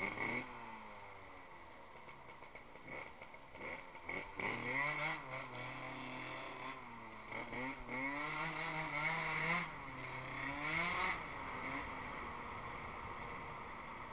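Tuned two-stroke Piaggio NRG scooter engine under way. It revs up and eases off three times, the pitch climbing about four seconds in and twice more before it drops back near the end. It is running in a freshly fitted piston ring, on jetting that the owner thinks is still too rich.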